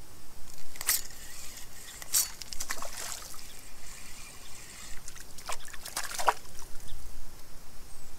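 Several short splashes, one every second or so, as a small hooked sucker thrashes at the water's surface while being reeled in on a spinning rod.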